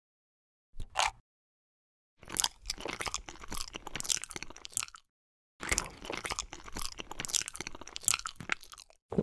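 Eating sound effect of crunchy biting and chewing: a short crunch about a second in, then two long bouts of crisp, crackly crunching with a brief pause between them.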